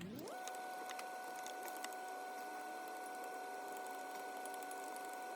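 A steady hum sweeps up in pitch at the start and then holds as a high, even whine, with quick small clicks and taps of hand work on the bus's A/C fittings over it, the sound of sped-up work footage.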